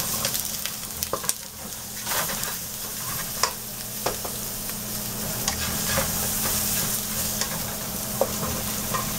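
Cauliflower florets sizzling as they go into hot oil and cumin seeds in a nonstick wok, with a steady hiss. A spatula scrapes and clicks many times against the steel bowl and the pan as the florets are pushed in and stirred.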